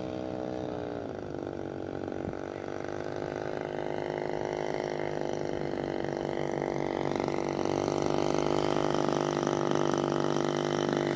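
The model biplane's EME 70cc two-stroke gas engine, throttled back about a second in and then running steadily at low throttle, getting louder as the plane comes closer on its low approach.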